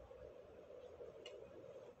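Near silence: faint steady room hum with one light click a little past a second in.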